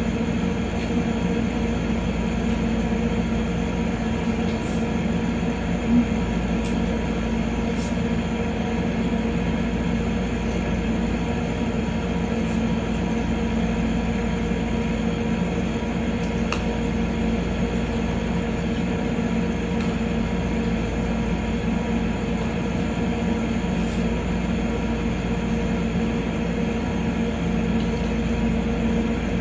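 A steady mechanical hum that does not change, with a few faint clicks.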